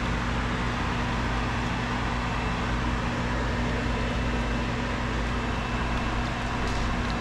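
Steady whir of a kitchen ventilation fan with a low electrical hum.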